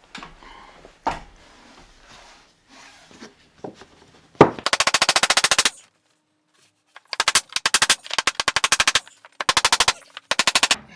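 A couple of single knocks on the pine board, then four bursts of rapid, evenly spaced hammering clatter from a power driver fastening the top tongue-and-groove pine board.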